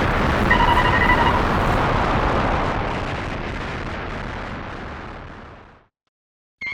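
A loud rumbling noise like an explosion, with a short burst of high, chirping, Ghidorah-like tones about half a second in. The rumble fades away over about five seconds. A warbling synthesizer tone starts right at the end.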